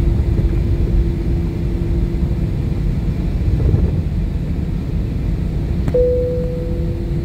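Jet airliner's engines heard from inside the cabin while taxiing onto the runway: a steady rumble with a constant low hum. About six seconds in a click and a second, higher steady tone start.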